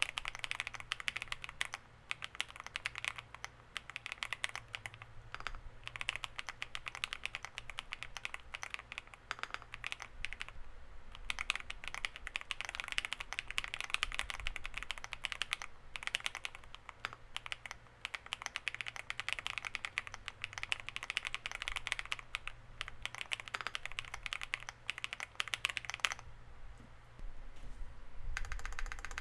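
Fast, continuous typing on a WEIKAV Record aluminium-cased mechanical keyboard with factory-lubed Akko Cream Black Pro linear switches, Akko Cream MDA PBT keycaps and a polycarbonate plate. The keystrokes stop for about two seconds near the end, then the typing picks up again.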